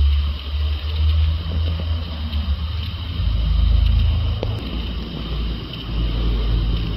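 Low, uneven rumble that swells and fades, with a steady faint hiss above it.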